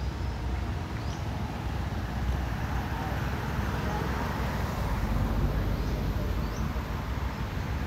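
Steady outdoor background noise, a low rumble with hiss, with a few faint, short, high rising bird chirps.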